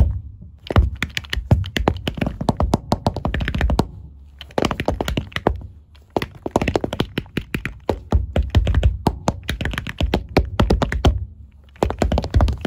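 Tap shoes striking a hard floor in fast, rhythmic tap-dance phrases, broken by short pauses about four and six seconds in and again near the end.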